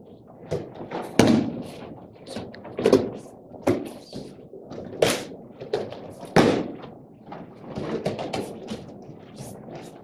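Bodies hitting a padded dojo mat as attackers are thrown in aikido randori and take breakfalls: a string of sharp thuds and slaps about a second apart, the loudest about one, three, five and six and a half seconds in.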